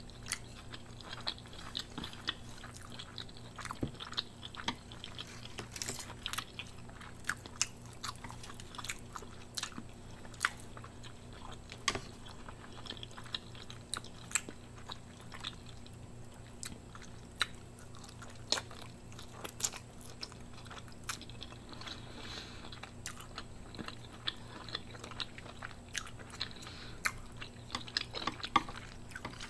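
A person chewing mouthfuls of mi goreng instant noodles and smoked sausage, with many small sharp mouth clicks and smacks scattered throughout. A faint steady hum runs underneath.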